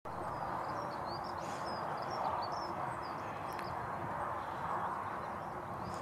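Blue tit giving a quick run of short, high chirps that stop about halfway through, over a steady background hiss.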